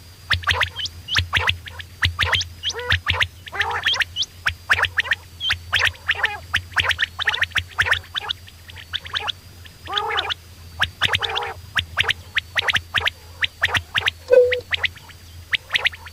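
Quail calling: a fast, irregular stream of short, rough chattering notes, several a second, with a few longer harsh calls. A steady low hum runs underneath.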